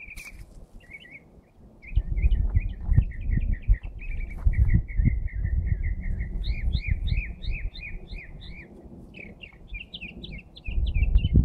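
A songbird singing long, fast runs of short repeated chirps, several notes a second, some notes doubled with a higher note. A low rumble on the microphone underneath comes in about two seconds in and again near the end, louder than the song.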